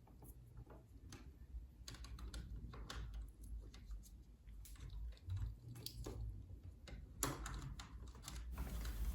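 Faint scattered clicks and taps of handling, over a steady low hum.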